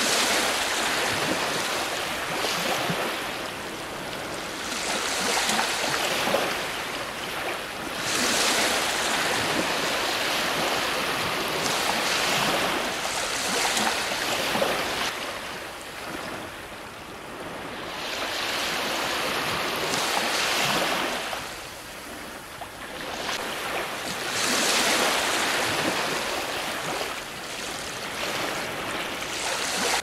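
Ocean surf breaking on a shore: a steady rush of water that swells and fades every few seconds as each wave comes in and washes back.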